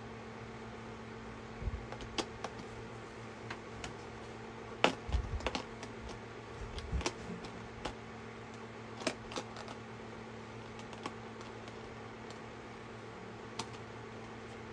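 Acrylic paint tubes clicking and tapping against the paint set's tray as they are set back in their slots. A cluster of knocks comes about five seconds in, followed by scattered single taps over a steady low hum.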